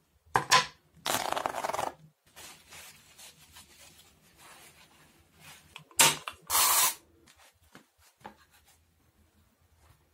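Tissue paper and tape handled by hand: sharp snaps followed by about a second of dense tearing and crinkling, twice, about five seconds apart, with light rustling in between.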